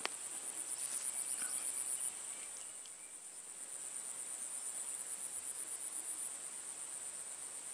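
Insects in the swamp trilling: one high, steady pulsing buzz, louder for the first two seconds and again from about four to six seconds in.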